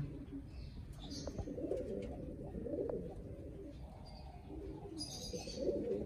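Domestic pigeons cooing: several low, rolling coos one after another.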